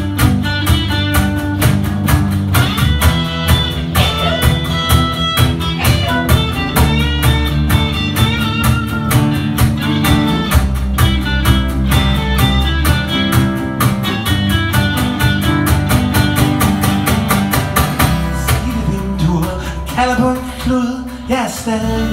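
Live acoustic band playing an instrumental passage: two acoustic guitars strumming and picking over a steady cajon beat. About eighteen seconds in the beat thins out and the music gets a little quieter.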